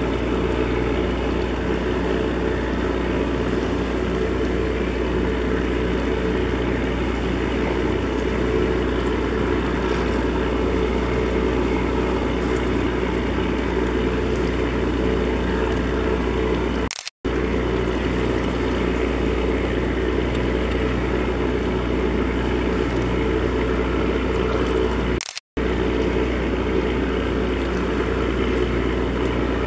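Steady low drone of a passing container ship's engine, heard across the harbour water, with a deep hum and several steady tones above it. The sound cuts out twice for a moment, about halfway through and again near the end.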